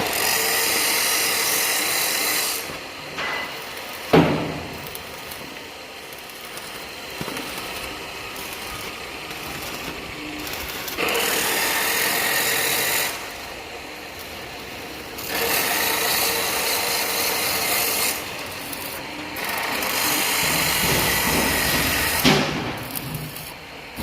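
A power tool running in spells of about two seconds each, four times, with a steady high whine, and quieter between the spells. A single sharp knock comes about four seconds in.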